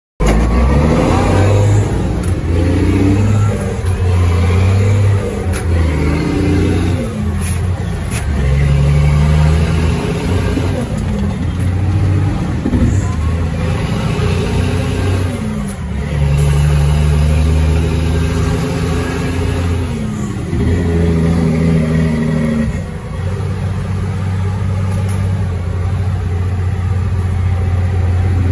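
Caterpillar 3306E inline-six diesel in a 1999 Ford Sterling truck, pulling under load. Its pitch climbs and falls back several times, with steadier stretches between, as it works through the gears of its 8LL transmission.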